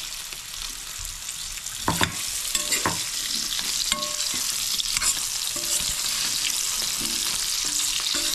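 Cubed potatoes sizzling as they fry in oil and ghee in a stainless steel kadai, with a metal spoon scraping and knocking against the pan as they are stirred.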